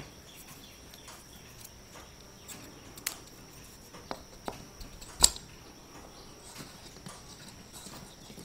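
Light clicks and taps of a thin wooden gear being handled and set down on its pin on a wooden board, with one sharper knock about five seconds in.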